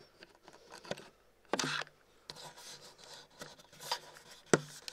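Camera handling noise: the microphone rubbing and bumping against clothing, heard as a string of short rustles and scrapes with a few sharp knocks, the loudest about one and a half seconds in and near the end.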